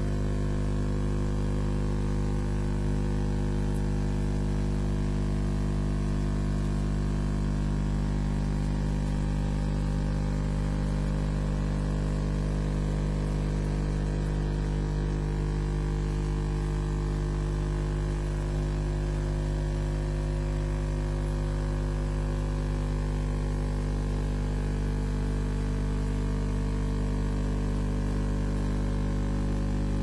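Steady electrical mains hum, a stack of unchanging low tones, with a hiss of static over it, the kind of interference carried on a webcam's audio feed.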